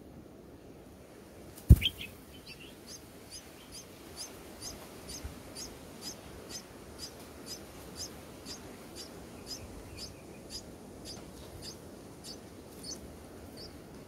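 A single sharp thump about two seconds in, followed by a steady series of short, high, thin cheeps, about two a second, from red-whiskered bulbul nestlings begging.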